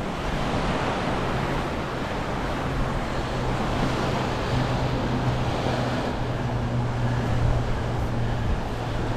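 Surf washing on the beach and wind buffeting the microphone, with a low steady hum underneath.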